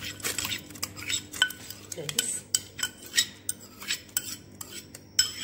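Metal ladle clinking and knocking against a metal pressure-cooker pot as blended tomato and added ingredients are stirred: a run of short, irregular clinks.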